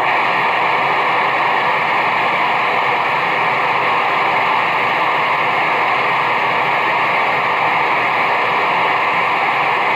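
CB radio speaker giving a loud, steady static hiss with a faint steady tone in it, switching on abruptly and cutting off abruptly near the end.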